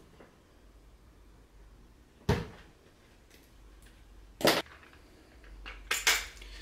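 Sharp clicks and knocks about two seconds apart, the last a quick double, from wire strippers and other hand tools being handled.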